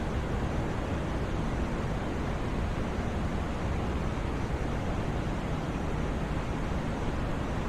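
Continuous sleep-aid noise of the kind sold as white noise: an even, unchanging rush with no events in it. Its weight sits in the low end and it thins toward the highs, so it sounds deeper than a bright hiss.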